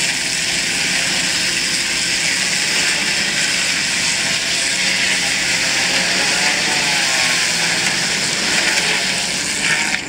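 Steam-powered sawmill blade cutting steadily through a large log, a continuous hissing saw noise that stops near the end.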